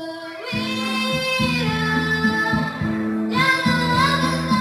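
A young girl singing into a handheld microphone over instrumental accompaniment; she holds one long note for nearly three seconds, then begins a new phrase.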